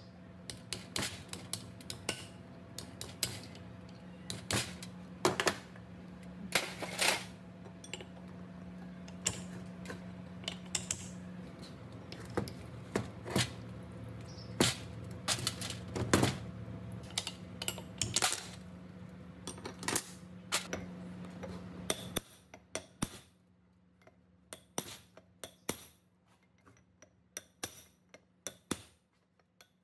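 Metal parts and hand tools clinking and tapping against each other in irregular sharp knocks, over a steady low hum that cuts off abruptly about 22 seconds in.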